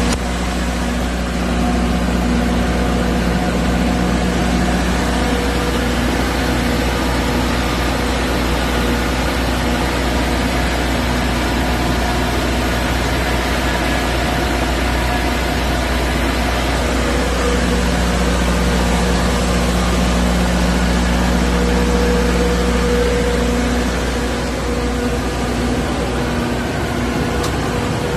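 Diesel generator set running steadily in its enclosure: an even engine hum with a deep rumble and a few fixed low tones, a little quieter near the end.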